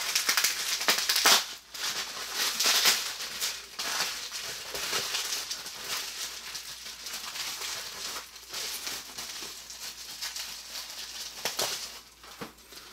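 Plastic bubble wrap being unwrapped and crumpled by hand: a dense run of crinkles and crackles, loudest in the first few seconds and softer after.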